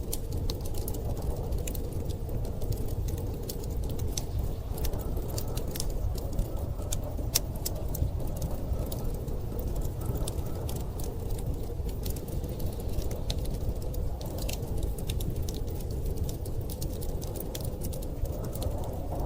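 Wood fire crackling with frequent sharp, irregular pops over a steady low rush of storm wind.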